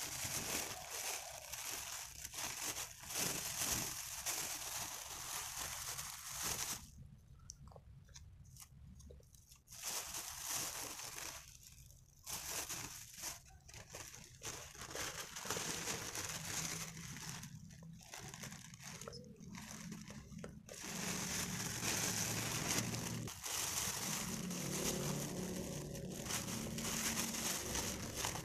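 Thin plastic grocery bags rustling and crinkling as they are handled and opened, in bursts with short pauses, the longest about seven seconds in.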